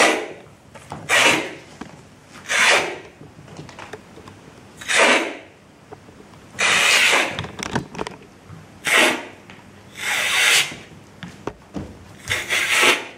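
A man hissing through an open mouth in imitation of a frill-necked lizard: a string of about eight sharp hissing breaths, one every second or two, a few of them drawn out longer.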